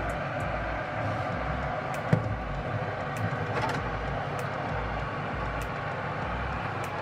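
Steady mechanical hum from a running oven, with the metal baking tray knocking once against the oven rack about two seconds in.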